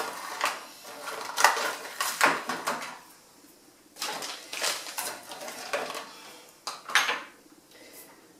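Glass spice jars and bottles clinking against each other and the wire pull-out basket as they are handled and put back, in irregular clatters with a short pause about three seconds in.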